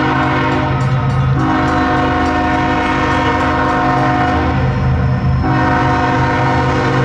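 Diesel freight locomotive's air horn sounding, held and steady, with two brief dips, about a second in and about five seconds in, over the low drone of the locomotive's engine.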